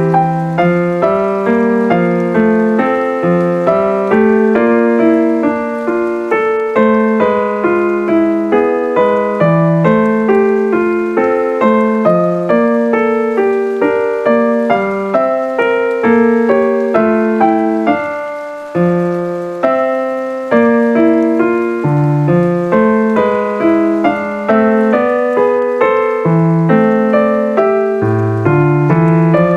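Solo piano music, with notes struck in a steady flowing pattern and a short pause about two-thirds of the way through.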